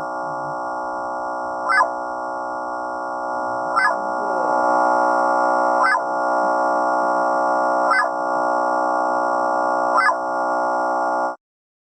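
Synthesized emergency alert alarm: a dense chord of steady electronic tones with a short swooping chirp about every two seconds. It steps a little louder about four seconds in and cuts off abruptly near the end.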